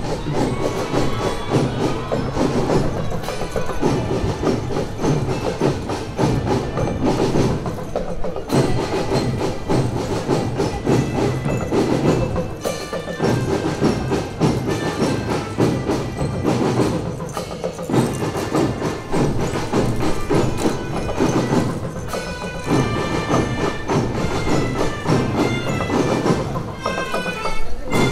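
School marching band playing a march tune: drums beating a steady rhythm under a bright, bell-like melody.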